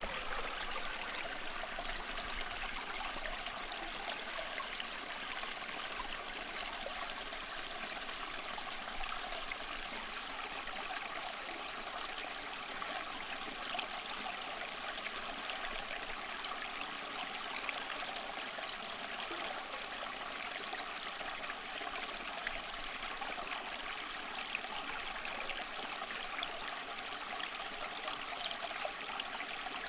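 Water of a small stream running over stones, a steady rush with many small splashes and trickles.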